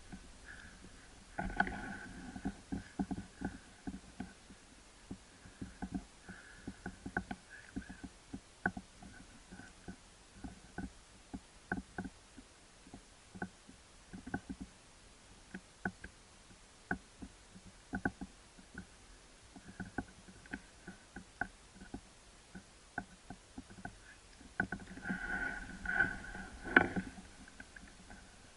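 A moose close by, making irregular soft clicks and crackles of movement and feeding, with louder, busier bursts about a second and a half in and again near the end.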